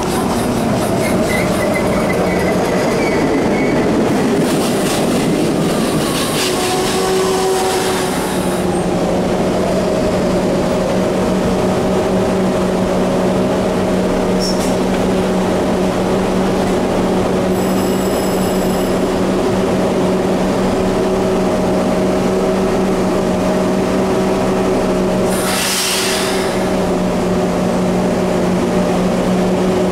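PATCO rapid-transit train rolling into the station and slowing to a stop over the first several seconds, with some wheel squeal, then standing with a steady hum from its onboard equipment. A short hiss of air breaks in about 26 seconds in.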